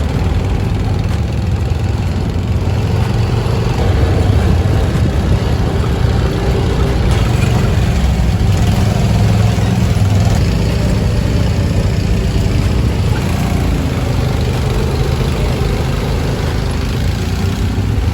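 UTV engine running steadily, a loud, continuous low rumble.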